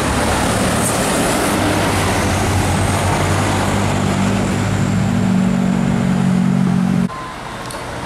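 Diesel engine of a medium-size bus running as the bus drives round a bend, a steady low drone that grows louder about four seconds in. It cuts off abruptly about seven seconds in, leaving quieter road noise.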